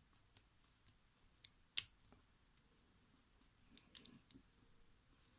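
Faint, scattered clicks of a short hook pick and tension wrench working the pins of a brass-bodied three-pin Wolf Dog padlock, with two sharper clicks a little under two seconds in and a few more about four seconds in.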